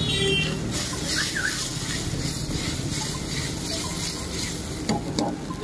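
Sauce bubbling and sizzling in a hot wok while a steel ladle stirs it, with a couple of sharp ladle clicks against the wok near the end.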